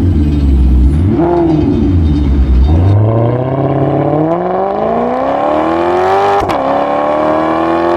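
Car engine revving, rising and falling briefly, then accelerating with its pitch climbing steadily from about three seconds in, dipping once for a moment near six and a half seconds and climbing again.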